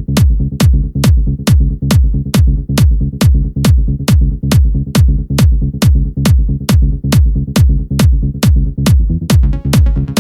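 Electronic dance music in a trance or techno style, driven by a steady kick drum at about two and a half beats a second. A higher hi-hat or synth layer joins the beat near the end.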